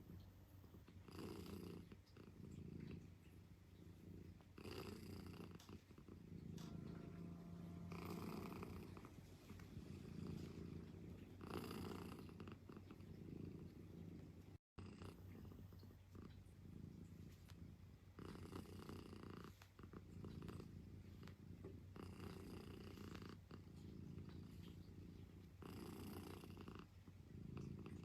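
Domestic cat purring, a faint low rumble that swells and eases with its breathing about every three and a half seconds.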